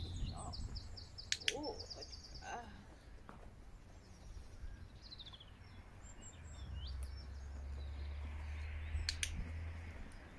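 Small birds singing and chirping in the background, with sharp double clicks of a training clicker about a second and a half in and again near the end, and a low rumble in the second half.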